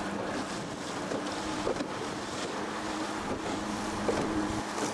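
Wind buffeting the microphone and choppy water splashing against a small inflatable boat, over a steady low motor hum.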